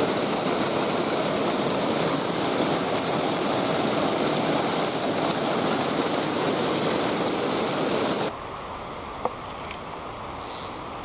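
Creek water rushing over rocks in a fast riffle, a loud steady noise. About eight seconds in it drops off abruptly to a much quieter background with a few faint clicks.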